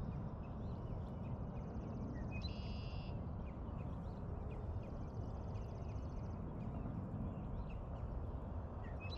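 Steady low outdoor rumble with a small bird calling in the background: a fast high trill, twice, the first ending in a short buzzy note.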